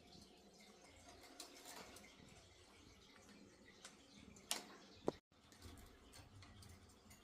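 Faint scattered ticks and taps from pet lovebirds moving about, with two short sharp sounds about four and a half and five seconds in, then a split-second gap of total silence.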